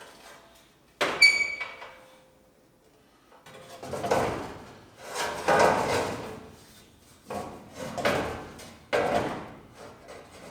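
A sharp metallic clank about a second in, ringing briefly, followed by several longer scraping, shuffling handling sounds of metal body parts being worked into place.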